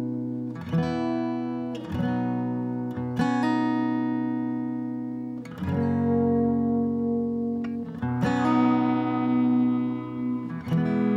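Instrumental intro of a song: guitar chords strummed and left to ring, a new chord struck every one to two and a half seconds.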